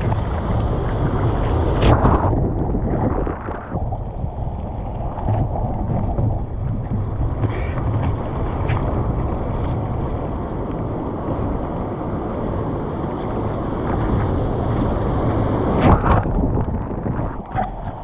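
Wind buffeting the microphone in a steady rush, with two sharp bursts, one about two seconds in and one near the end.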